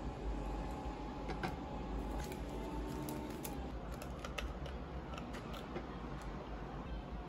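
Scattered light clicks, taps and rustles of a reed diffuser bottle being handled and its metal cap twisted off, over a steady low hum.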